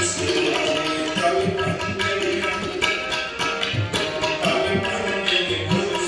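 Gurbani kirtan: harmonium playing held notes with tabla drumming under it.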